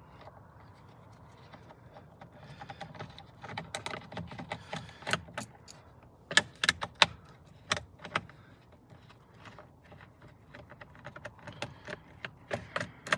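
Phillips screwdriver taking screws out of the underside of a plastic steering column trim cover, with many scattered sharp clicks and small rattles of plastic and metal.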